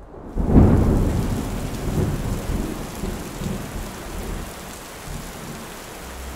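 Thunderstorm: a loud thunderclap about half a second in rolls away slowly, with further low rumbles, over a steady hiss of rain.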